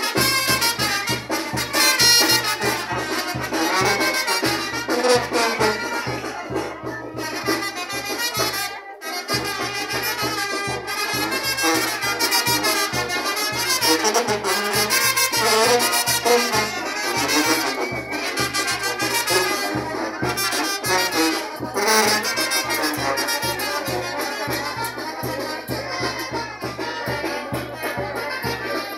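Brass band playing a lively tune over a steady drum beat. The sound drops out for an instant about nine seconds in.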